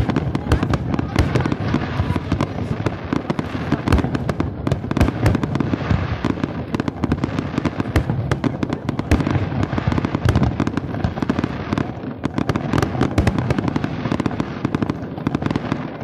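Fireworks display with aerial shells bursting overhead: a dense, unbroken run of sharp bangs and crackles.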